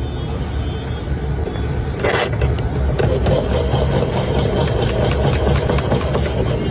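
Hand-cranked spiral cutter turning a skewered green banana through its blade: a sharp start about two seconds in, then a steady rasping of the fruit being cut into a spiral. A steady low engine hum runs underneath.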